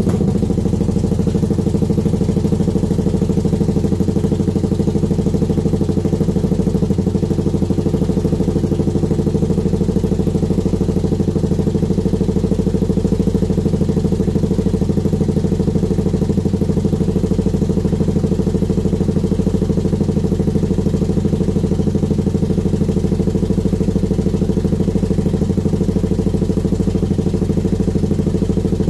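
Freshly rebuilt Kawasaki Brute Force ATV engine running for the first time, idling steadily at an even speed.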